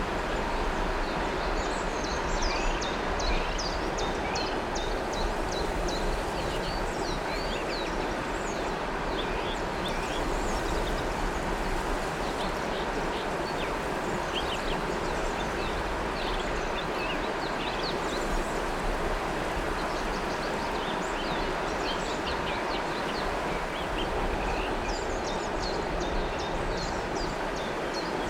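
River water flowing in a steady rush, with small birds chirping and trilling above it in repeated spells.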